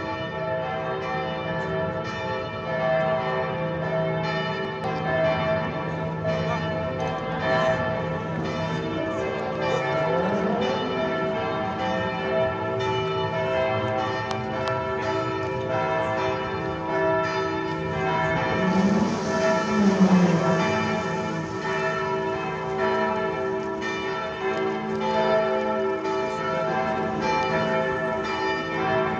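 Church bells ringing together, many bells sounding at once with overlapping, lingering tones.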